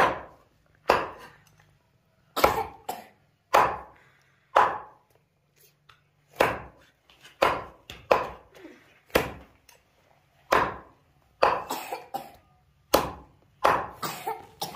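A cleaver chopping a raw chicken into pieces on a chopping board: sharp, separate chops at an uneven pace, about one a second at first and closer together in the second half.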